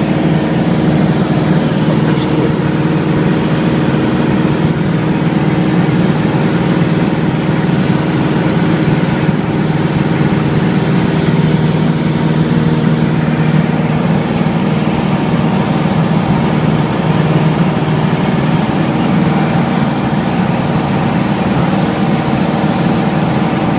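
Light aircraft's piston engine and propeller droning steadily in cruise, heard from inside the cabin, with an even pitch throughout.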